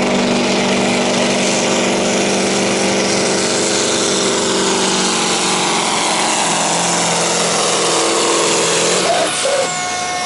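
Scania pulling truck's diesel engine running flat out under load as it drags the weight sled, its pitch sagging slightly as the pull goes on. About nine seconds in the engine backs off at the end of the run, and a high whine winds down.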